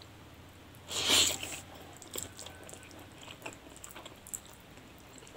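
A person slurping a forkful of spicy noodles in one loud, hissy pull about a second in, then chewing with soft, wet mouth clicks.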